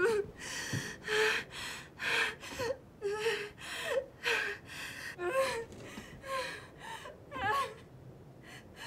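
A woman in labor gasping for breath in quick, ragged pants, about a dozen breaths, many of them broken by a short, high whimper.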